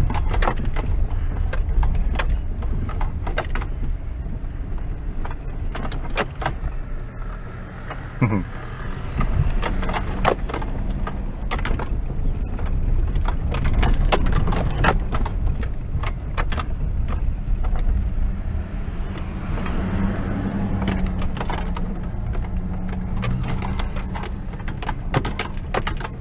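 A truck driving over a rough, rutted dirt road, heard from inside the cab: the engine runs under a steady low rumble, with many knocks and rattles as the truck bumps along.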